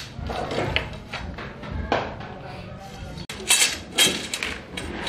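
Thin steel heater tubes clinking and rattling against each other as they are handled in a bundle, with a burst of sharp metallic knocks a little past halfway.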